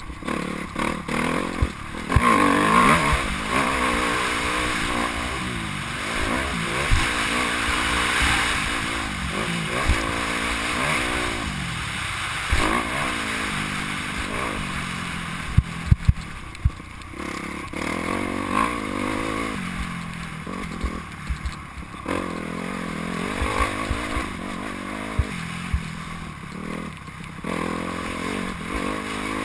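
Motocross bike engine revving up and falling back again and again as it is ridden hard round a dirt track, heard from the rider's helmet with a rush of wind. Sharp knocks come now and then, several of them in quick succession.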